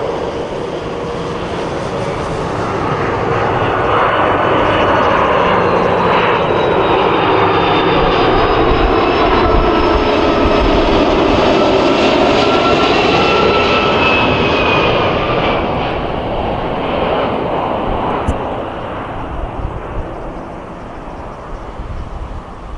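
Qantas Airbus A330-200 jet airliner on final approach passing low overhead: its engine noise swells to a peak, with tones that slide downward in pitch as it passes, then fades as it flies away toward the runway.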